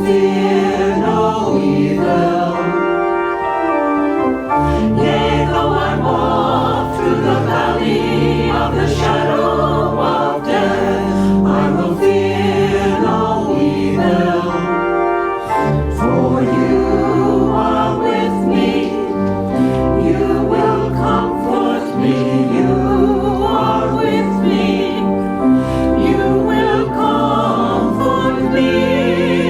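A choir singing a hymn with organ accompaniment.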